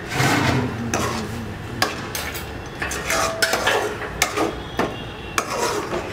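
Metal kitchen utensils, tongs and a ladle, clattering and clinking against an aluminium cooking pot in a run of irregular sharp knocks.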